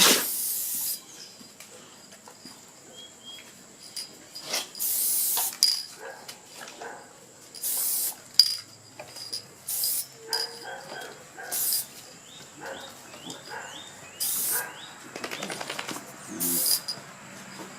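Aerosol can of spray adhesive hissing in about seven short bursts, the longest at the start and about five seconds in. The glue is being sprayed onto the band saw wheel's tape before a rubber tube tyre goes on.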